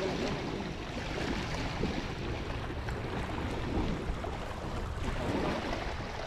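Wind buffeting the microphone over small lake waves lapping against a concrete boat ramp and rocks, a steady rushing noise.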